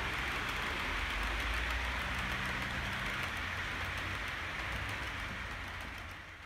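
OO gauge model trains running on the layout's track: a steady rushing rumble of wheels on rail with a low motor hum, fading out near the end.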